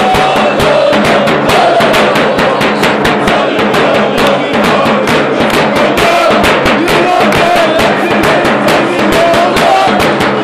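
Supporters' bass drums struck with mallets in a fast, steady beat, about four strokes a second, with a crowd of football fans chanting in unison over them.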